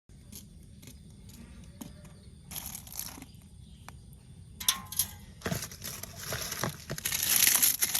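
Handling noises: scattered sharp clicks and knocks, then crinkling, rustling noise that grows louder and denser in the second half.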